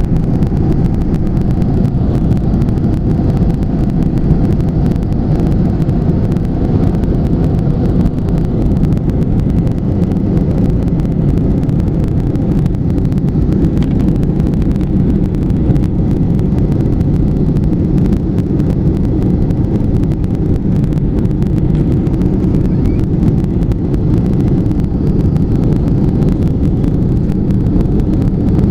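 Steady, loud drone of an aeroplane in flight, heard from inside the cabin: engine and airflow noise, deep and unchanging.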